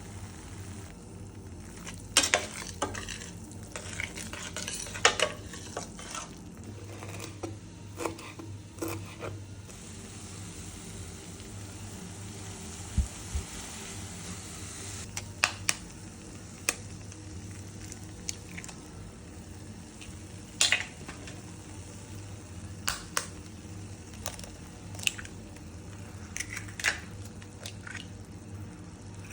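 A metal utensil clinking and scraping against a frying pan at irregular moments while food fries with a steady light sizzle.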